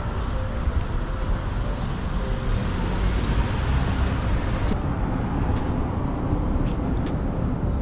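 Street traffic noise: a small car driving slowly past close by, over a steady low rumble. A few light clicks come in the second half.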